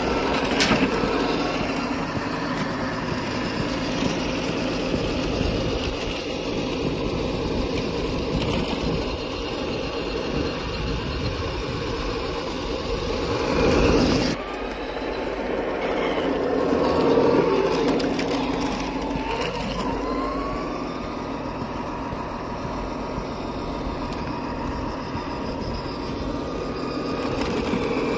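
Simulated truck engine sound from a GT Power multi-function sound unit, played through the speaker of a Tamiya King Hauler RC truck as it drives, rising and falling in pitch with the throttle. The sound drops suddenly about halfway through.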